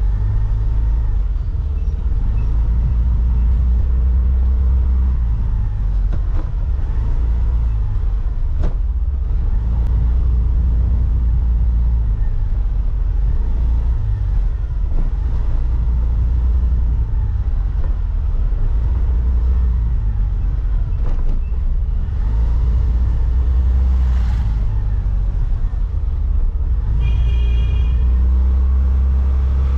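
Steady low rumble of wind on a vehicle-mounted camera and a motor running as it rides along a street, with the pitch gliding slightly as it speeds up and slows. A brief high-pitched squeal near the end.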